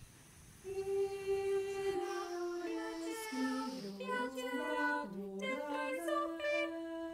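Mixed choir singing a cappella. After a brief hush of under a second, sustained chords enter, the inner voices step up and down through the middle, and the choir settles on a held chord near the end.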